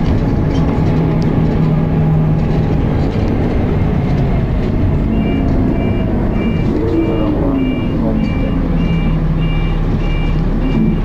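Dennis Arrow bus running under way, its ZF automatic gearbox said to be slipping; about seven seconds in the engine note falls and climbs again. From about five seconds in a high two-tone electronic beep repeats about one and a half times a second over the engine.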